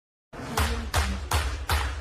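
Intro music with a heavy, evenly paced drum beat of about three hits a second, starting a third of a second in.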